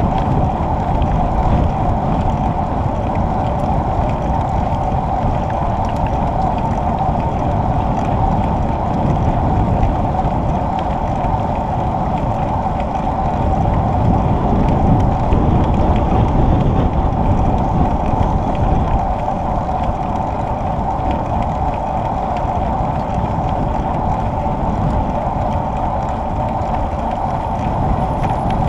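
Bicycle riding along a smooth asphalt cycle path, heard from a camera mounted on the bike: steady wind noise on the microphone and road rumble, with a constant mid-pitched hum over it.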